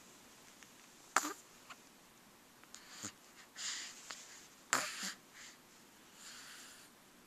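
Sleeping baby snoring and snuffling: soft, wheezy breaths through the nose, broken twice by short sharp clicking sounds, which are the loudest things heard.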